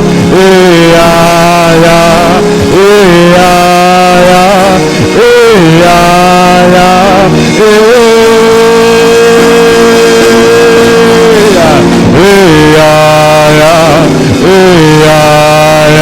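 Slow worship music: a steady low drone under a sliding, wavering melody line, with one note held for several seconds in the middle.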